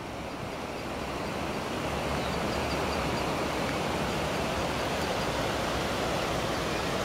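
Rushing water of the Lahn river running high in flood: a steady noise that grows louder over the first two seconds, then holds.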